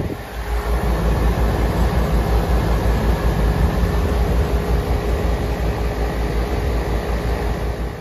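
York air-conditioning condenser running: a steady rush of air from the outdoor fan with a low rumble and a faint steady hum. The unit is low on R22 refrigerant and is running while being charged with gauges attached.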